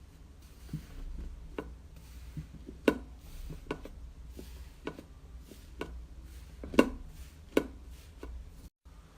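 Slime being squeezed and pressed by hand, making a string of irregular sharp pops and cracks, the loudest about three seconds and nearly seven seconds in.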